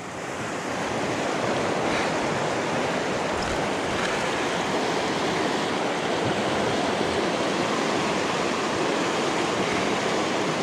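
Steady rush of flowing river water, swelling up over the first second and then holding even.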